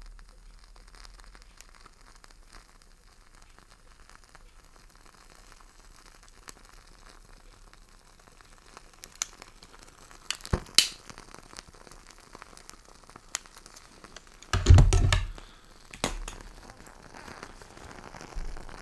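A WoodWick candle being lit: a few sharp clicks past the middle, then one loud rasping strike about three-quarters of the way in, followed by the faint crackle of the candle's wooden wick catching.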